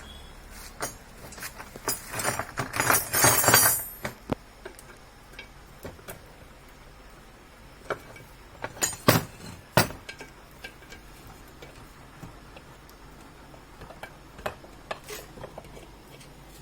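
Metal clinks, scrapes and clicks against a scooter wheel rim as a tubeless tyre valve is worked into the rim's valve hole until it seats. A run of clatter in the first few seconds, then two sharp clinks about nine seconds in, with scattered light ticks.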